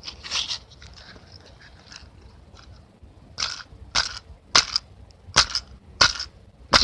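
Matches struck against a matchbox's striking strip: six quick scrapes in a row about two-thirds of a second apart, starting about three and a half seconds in.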